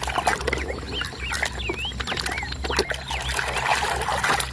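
Water trickling and splashing as muddy plastic toy vehicles are washed by hand, with scattered clicks of the toys being handled. A run of short, high, wavering chirps sounds through the first three seconds or so.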